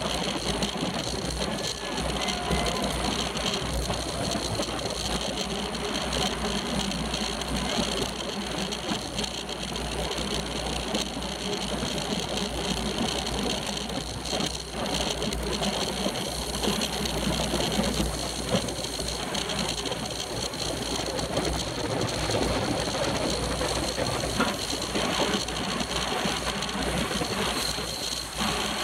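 Road racing bicycle riding at speed in a bunch, heard through a camera mounted on the bike: steady wind and road noise with a fast mechanical rattle from the bike.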